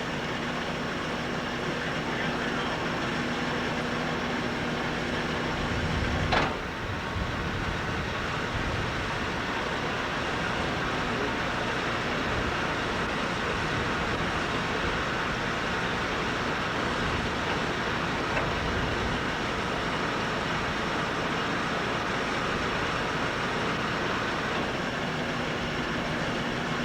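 Heavy machinery running steadily, with one sharp bang about six seconds in.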